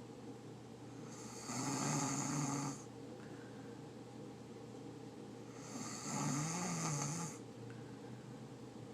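A person snoring loudly: two snores about four seconds apart, each lasting a little over a second, with a low rattling hum under a breathy hiss.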